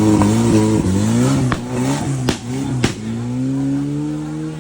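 Off-road race buggy's engine revving up and down in quick repeated bursts, with three sharp cracks in the middle, then holding a steady note near the end.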